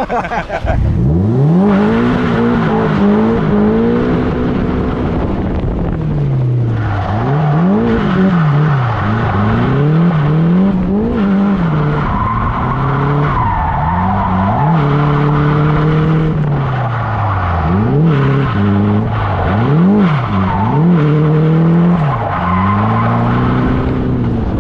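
A car driven hard on a tight course, its engine revs climbing and dropping every second or two as it accelerates, changes gear and brakes, with tyres squealing at times.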